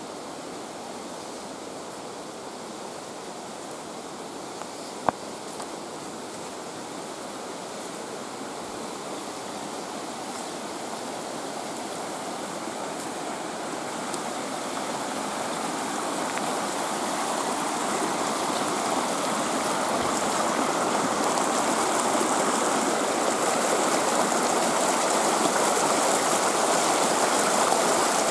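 Small mountain creek rushing and splashing over rocks in a little cascade, a steady rush that grows louder as it is approached. A single sharp click about five seconds in.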